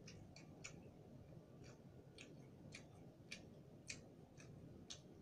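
Near silence with faint, irregular small clicks, about two a second, the mouth and finger sounds of someone eating by hand.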